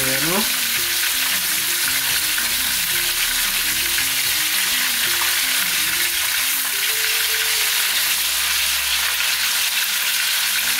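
Barracuda steaks frying in hot oil in a pan: a steady sizzle, with background music under it.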